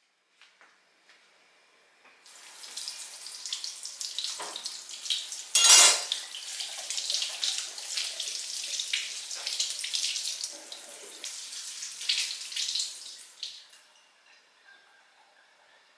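Kitchen faucet running as eggplants are rinsed under the stream, water splashing over the hands and vegetable, with one brief louder burst partway through. The tap comes on about two seconds in and stops shortly before the end, leaving a few faint small knocks.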